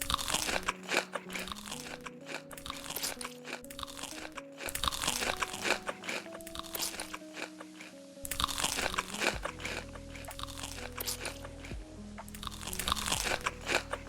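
Crunchy food being bitten and chewed, the crunches coming in loud clusters, over background music with a simple melody.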